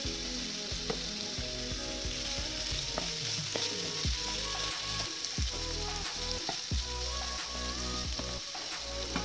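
Diced potatoes frying in oil in a nonstick pan on a low flame, sizzling steadily as a spatula stirs them, with scattered clicks of the spatula against the pan.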